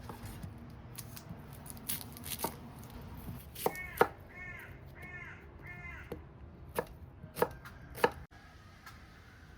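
A knife chopping on a cutting board: about eight sharp, irregular strikes, typical of cutting celery and herbs for a stew. In the middle, an animal gives a quick series of about five short calls.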